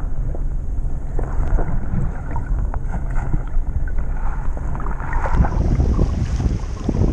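Dull underwater rumble with scattered clicks, heard through a submerged camera in shallow water. About five seconds in the camera breaks the surface and splashing water and wind on the microphone take over.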